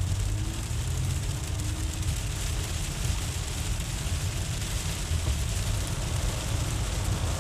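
Steady road noise heard inside a moving car: tyres running over a hail- and slush-covered road, with a low engine rumble.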